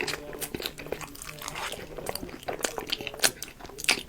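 Close-miked eating: a person biting into and chewing crunchy food, with irregular crisp crunches and mouth clicks.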